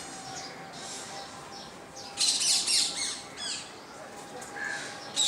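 Birds chirping and calling in quick high bursts, loudest about two seconds in and again at the very end, with a few short falling calls between.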